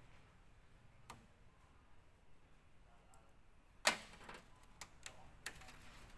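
Faint, scattered clicks of hand work on TV wiring: wire cutters and plastic wire connectors handled on the metal chassis. The loudest is a sharp clatter just before four seconds in, followed by a few lighter clicks.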